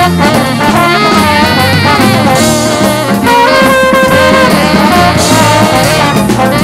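Traditional New Orleans jazz band playing a blues, with horns carrying the melody over a drum kit and bass.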